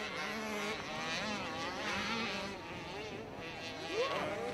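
Motocross dirt bike engines revving, their pitch rising and falling as the riders open and close the throttle, with more than one bike heard at once.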